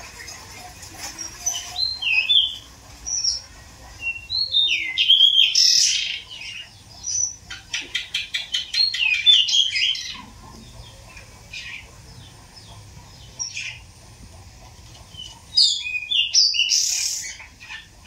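Pied bushchat (decu) singing: bursts of short, varied chirpy phrases with pauses between them, including a quick run of sharp ticks about halfway through.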